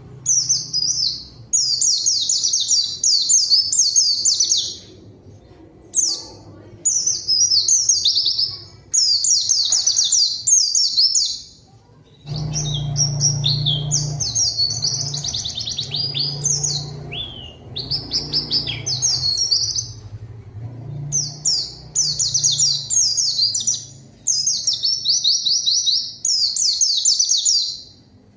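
White-eye (pleci) singing a rapid, high twittering song in repeated phrases of one to two seconds with short pauses between them. This is the vigorous, competitive song used to provoke rival white-eyes into singing.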